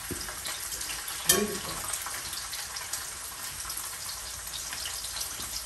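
Food sizzling in a frying pan on a gas stove: a steady frying hiss, with a single short sharp click a little over a second in.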